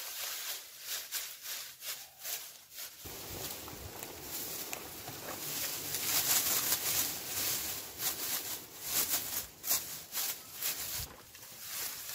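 Dry grass and straw rustling and crackling as handfuls are gathered and heaped by hand over a pile of bricks. The crackles are sparse at first and become a denser rustle from about three seconds in.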